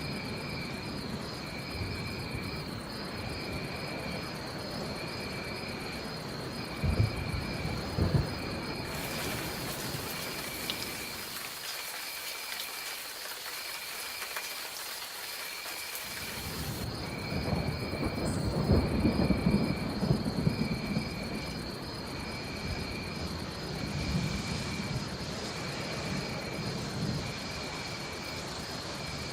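Steady rain with low rumbles of thunder, two short sharper cracks about seven and eight seconds in and a longer rumble later. Over it a high animal call repeats about once a second with a pulsing chirr above it. For several seconds in the middle the low rumble drops away and a brighter hiss of rain fills in.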